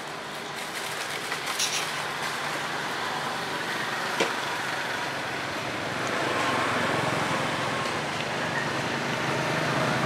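Steady motor-vehicle engine noise that grows louder about six seconds in, with one sharp click about four seconds in.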